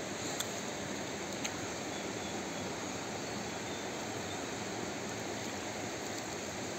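Steady rush of a flowing river, with a couple of faint ticks in the first second and a half.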